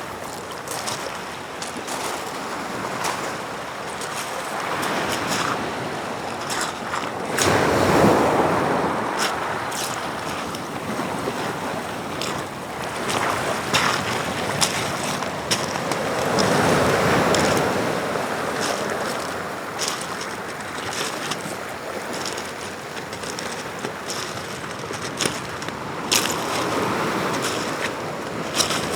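Atlantic surf breaking on a rocky shore, a steady wash that swells as waves break about 8 seconds and 17 seconds in. Many short, sharp clicks are scattered throughout.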